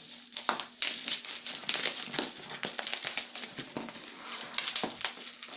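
Plastic packaging crinkling and crackling irregularly as it is handled and pulled off a newly unboxed item.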